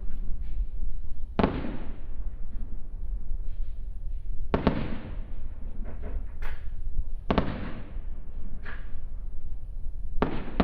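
Aerial fireworks shells bursting: four sharp booms about three seconds apart, each trailing off briefly, with a few smaller pops between them, over a steady low rumble.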